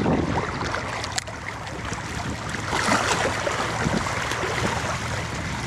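Wind and small waves lapping against the shore, a steady rush with scattered small ticks and splashes.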